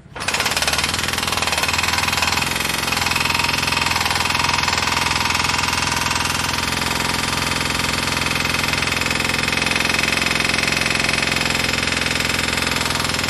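A loud machine runs steadily with a fast, even pulsing rattle, starting abruptly.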